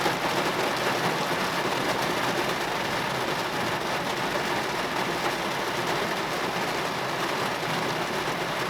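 Heavy thunderstorm rain falling steadily on a car, heard from inside the closed cabin.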